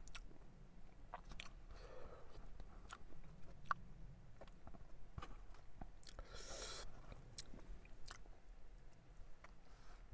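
A person chewing a soft, sauce-soaked sub sandwich close to the microphone, with scattered wet mouth clicks and lip smacks. A brief hiss comes about six and a half seconds in.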